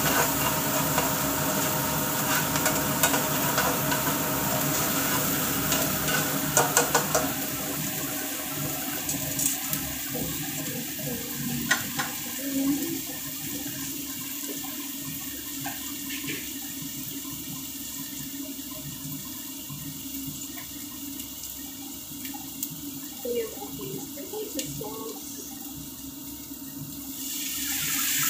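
Chopped onion and garlic sizzling in hot oil in a frying pan, with a spatula scraping and stirring in the first several seconds. Near the end the sizzle grows louder as tomato pasta sauce is poured into the pan.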